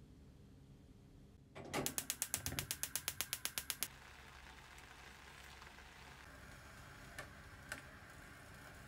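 Gas hob burner's igniter clicking rapidly, about ten clicks a second for two seconds, until the burner lights; then the steady hiss of the gas flame, with two light taps near the end.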